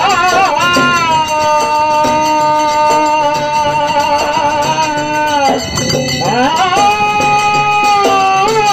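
Kannada folk devotional singing: a voice holds long high notes with sliding rises between them, over a steady beat of hand drum and jingling percussion.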